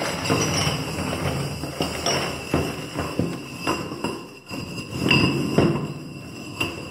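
Interlinked ceramic rings of a large sculpture knocking and clinking against one another as the sculpture is lifted and moved, a dense run of hollow knocks with high ringing tones that hang after the strikes.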